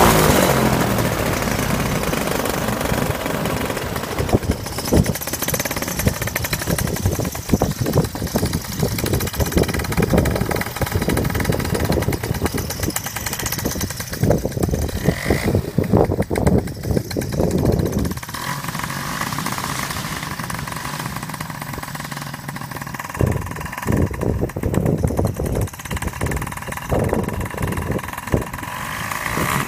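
A paramotor (motorised paraglider) engine running, with gusty wind buffeting the microphone. About two-thirds of the way in the wind thumps ease and the engine's steady drone stands out more.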